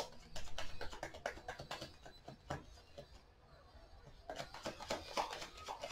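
A deck of tarot cards being shuffled by hand: quick runs of soft card flicks and taps, thinning out in the middle and picking up again about four seconds in.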